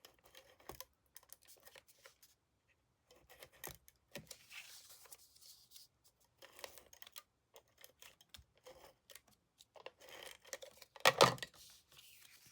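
Tape runner laying adhesive on cardstock, with scattered small clicks and paper rustles as the card pieces are handled, and one louder clack about 11 seconds in.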